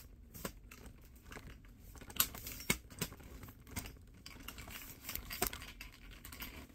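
Camera handling noise: scattered light clicks, knocks and rustling as a phone camera is picked up and repositioned, with the sharpest knocks a little after two seconds and again a little after five seconds.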